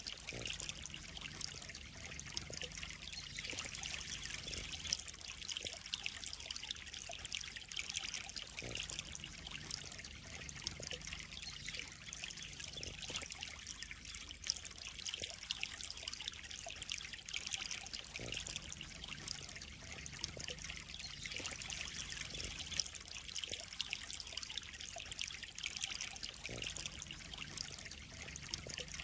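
Steady trickle and splash of running water in a koi pond.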